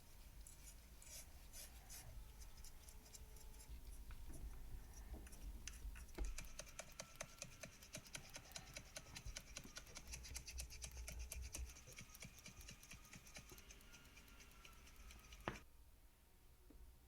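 Faint scratching and scraping from hand-tool work on a small metal scale model car, with many small clicks and a fast run of even ticks through the middle.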